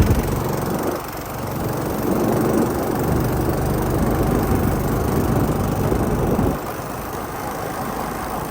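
Vehicle engine running on the move, with a steady rumble that drops noticeably about six and a half seconds in.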